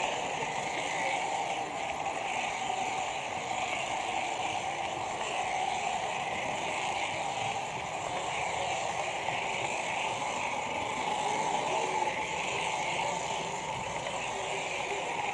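Small electric motor and wheels of an H0 model train running steadily on the track, a continuous whirring rumble.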